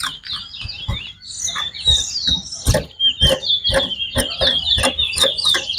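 Caged towa-towa finches singing in a song race: fast, chirpy warbling phrases that run almost without a break, with frequent sharp clicks mixed in.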